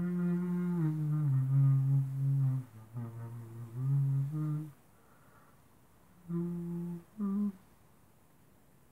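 A man humming a slow tune in long held notes that step up and down in pitch; it breaks off about five seconds in, and two short hummed notes follow a second and a half later.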